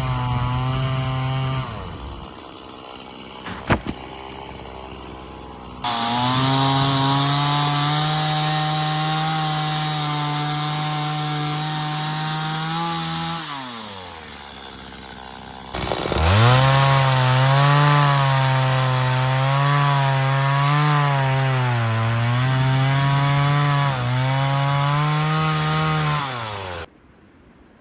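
Chainsaw run at full throttle in three cuts, dropping back to idle between them. In the last, longest cut the engine pitch dips and wobbles as the chain loads up in the wood, consistent with felling trees. The saw shuts off near the end.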